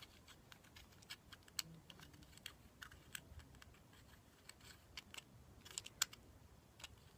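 Faint, irregular light plastic clicks from a Fidget Cube being handled as its spin dial is turned, the loudest click about six seconds in.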